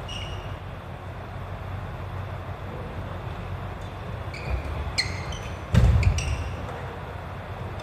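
Court shoes squeaking on a wooden sports-hall floor during a badminton rally, in short chirps several times, with a loud thump just before six seconds in, over a steady low hum of the hall.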